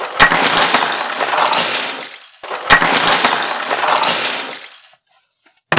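A heap of small 3D-printed plastic toys pouring out of a cardboard box onto a tabletop, clattering and tumbling in two long pours with a short break between them. A single sharp knock comes near the end.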